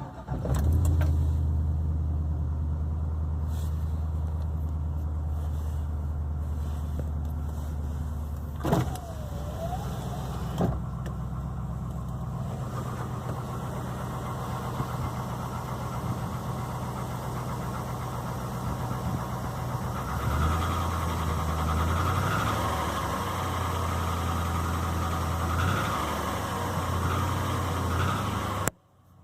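Chevrolet Silverado's 5.3-litre V8 running with a loud, deep knock. This is the knock it makes after sitting for 6-8 hours at 183,000 miles, which the owner finds too loud for piston slap and too deep for lifters. The engine note rises and wavers from about twenty seconds in.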